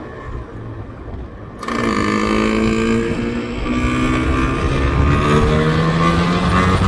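Yamaha RZV500R's two-stroke V4 engine under way, low and subdued at first, then opening up sharply about a second and a half in and climbing steadily in pitch as the bike accelerates.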